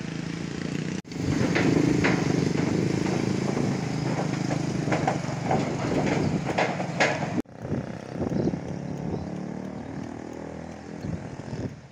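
Motorcycle engine running as it crosses a steel truss bridge, with a few short, sharper noises over it. After a cut about seven seconds in, a quieter steady rush of wind and flowing floodwater.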